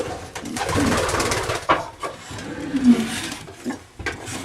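Racing pigeons cooing, with a low coo about three seconds in, over bursts of noisy rustling.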